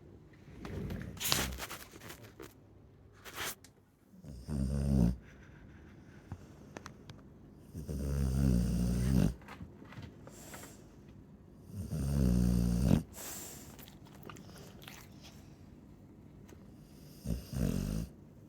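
Chow Chow dog snoring: four loud snores, each about a second long, coming roughly every four seconds, with softer breathing between. A couple of short sharp sounds come near the start.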